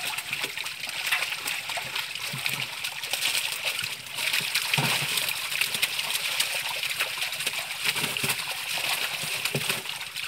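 A crowd of live fish thrashing in shallow water inside a net as hands grab at them: a dense, continuous patter of splashes and slaps.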